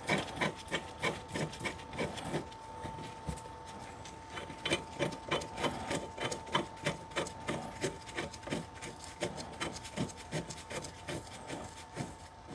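Ratchet wrench with a 13/16-inch socket clicking in quick repeated strokes, running down the bolts that join the two halves of a C3 Corvette brake caliper. A faint steady tone runs underneath.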